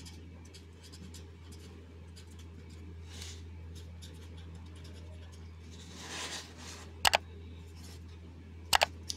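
Felt-tip pen writing on paper: faint scratching strokes over a low steady hum. Near the end, two short sharp clicks.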